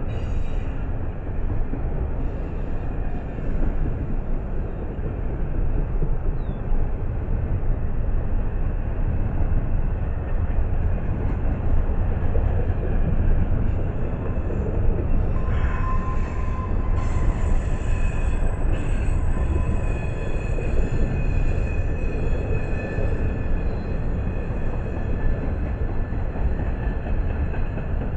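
Double-stack intermodal freight cars rolling slowly past, a steady low rumble of steel wheels on the rails. About halfway through, a high-pitched metal-on-metal squeal from the cars' wheels sets in as several steady tones and keeps on.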